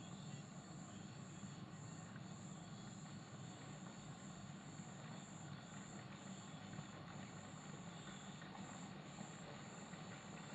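Metallic electric kettle heating water close to the boil: a steady low rumble and hiss.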